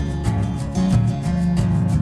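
Background music: guitar strummed in a quick, regular rhythm over sustained chords.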